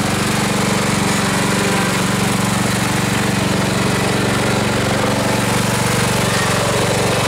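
Ride-on lawn tractor's engine running steadily while it tows a flatbed trailer.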